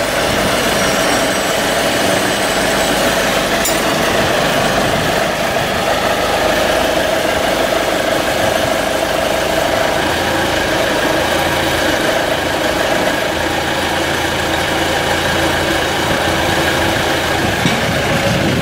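Vacuum excavation unit's engine running steadily while it drives the hydraulic boom that swings and lowers the suction nozzle.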